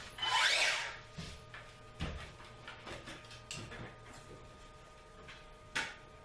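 Knocks and scuffs of a man climbing a stepladder and handling a circular saw under ceiling joists, the saw not yet cutting. A short loud rush of noise comes just after the start, then several separate knocks, the sharpest near the end.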